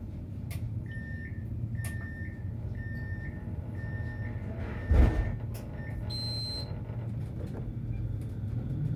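Tram door-closing warning: a run of short high beeps, a little under one a second, then a sharp thump as the doors shut, followed by a brief higher tone. The tram's steady low hum runs underneath.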